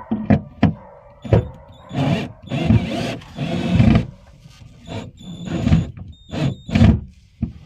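Tools and metal hardware being handled: a series of sharp clinks and knocks, some with a brief metallic ring, and a rattling, scraping stretch about two to four seconds in.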